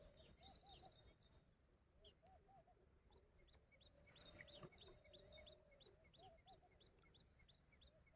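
Faint birdsong from several birds. One call is short looping notes in twos and threes, with quick runs of high chirps over it. In the second half a high chirp repeats about three times a second.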